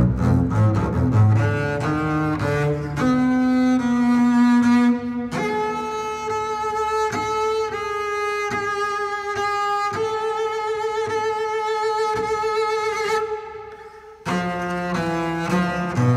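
Solo double bass played with the bow: quick notes climbing up from the low register, then long high notes with vibrato. About fourteen seconds in the sound briefly drops away before fast low notes start again.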